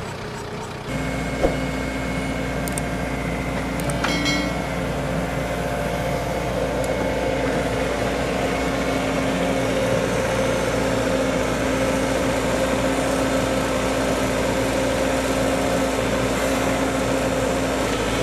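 A heavy construction machine's engine running steadily, with a constant hum and a light whine held on one pitch. There is a single sharp click about a second and a half in.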